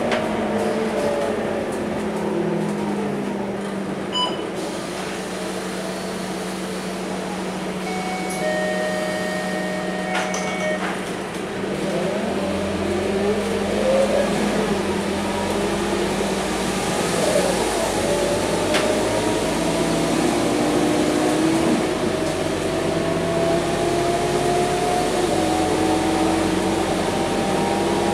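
Scania K230UB Euro V bus's five-cylinder diesel engine and drivetrain heard from inside the passenger cabin while driving, a steady hum that gives way about halfway through to slowly rising whines as the bus picks up speed.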